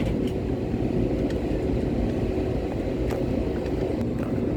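Airliner cabin noise: a steady low rumble of engines and wheels with a faint steady hum and occasional light rattles.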